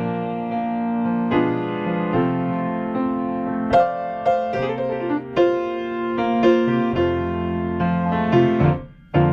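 Solo piano music, played note by note over held chords; it cuts out briefly just before the end.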